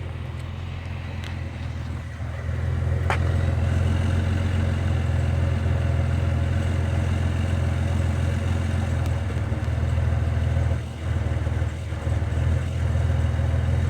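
Truck engine idling steadily after about five minutes of running, a smooth idle; it grows louder about two and a half seconds in, with a single sharp click soon after.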